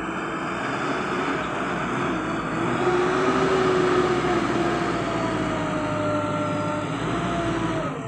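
JCB backhoe loader's diesel engine working hard as the front bucket pushes into a pile of soil, its note rising about two and a half seconds in and then slowly sagging.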